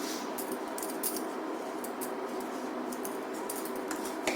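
A spoon stirring and scraping dry semolina around a pan as it roasts on a low flame: a steady gritty rustle with short scrapes and one sharper click near the end.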